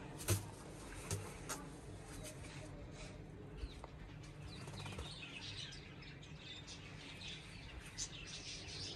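Faint, scattered short clicks and rustles from a pigeon being handled to free thread from its foot, with small birds chirping faintly, mostly in the second half.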